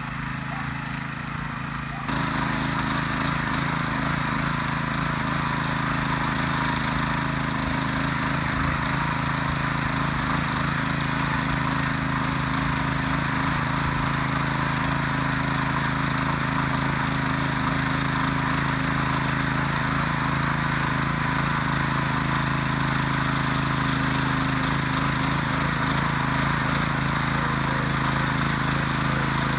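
Ruris DAC 7000 ACC2 motor hoe (rotary tiller) running steadily under load, its tines churning through dry garden soil. It gets louder about two seconds in.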